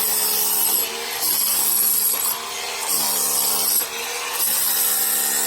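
A power tool running in repeated bursts, about one every second and a half with short dips between, with a high whine during each burst.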